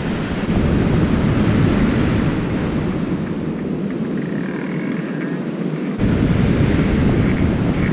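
Surf breaking on a sandy beach, with wind on the microphone. The low wind rumble grows stronger about six seconds in.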